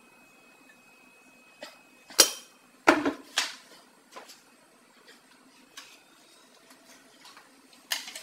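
Kitchen clatter: several sharp knocks and clacks of things being handled, the loudest about two seconds in and a quick cluster around three seconds, with another near the end, over a faint low steady hum.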